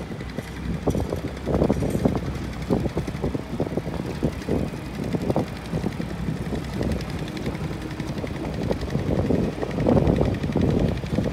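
Wind buffeting the microphone outdoors, an irregular low rumble rising and falling in uneven gusts, strongest near the end.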